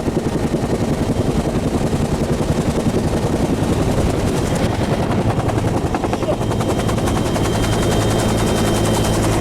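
Helicopter running close by, its rotor blades making a fast, even chop over the engine. The sound grows steadier from about two-thirds of the way in.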